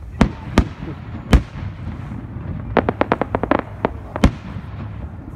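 Aerial fireworks shells bursting. Three separate bangs come in the first second and a half. About three seconds in there is a quick run of crackling pops, and one more bang follows near the end.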